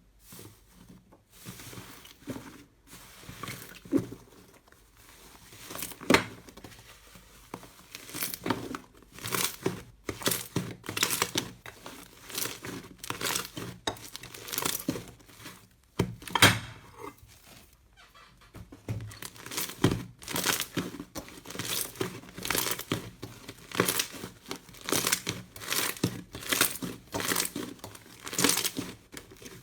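Slime being squeezed and pressed by hand, with a run of irregular crackling pops and squishes. The pops come sparsely at first, then thick and fast, with a short lull in the middle.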